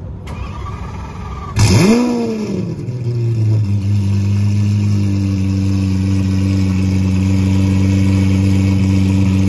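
Lamborghini Aventador SV's V12 with a Gintani aftermarket exhaust starting up. It fires about one and a half seconds in with a loud flare of revs that rises and falls, then settles into a steady high cold-start idle.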